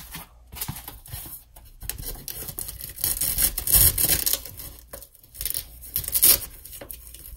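A fabric divider panel being rubbed and pressed into place inside a canvas organizer caddy, its Velcro strap fastening. Scratchy rustling comes in bursts, loudest about three to four seconds in and again near six seconds.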